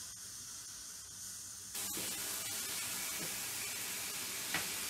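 Chicken breasts sizzling in a hot frying pan; the sizzle jumps louder about two seconds in as the chicken is turned over, then holds steady. A light knock near the end.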